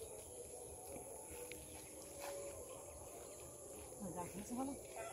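Faint rural outdoor ambience: a steady high insect drone, with a short low voice-like sound near the end.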